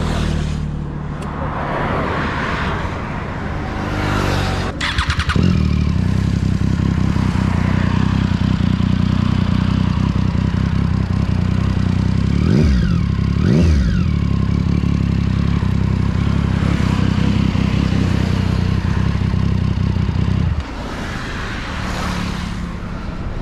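Triumph Street Triple's inline three-cylinder engine through a Two Brothers aftermarket exhaust: started about five seconds in, then idling, with two quick throttle blips that rise and fall near the middle. The engine cuts off suddenly near the end.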